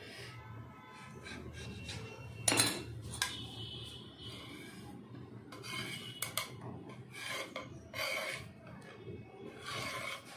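A steel knife scrapes and taps on a metal plate as it cuts rolled dough into strips, and the cut pieces are pushed across the plate. The sharpest clink comes about two and a half seconds in.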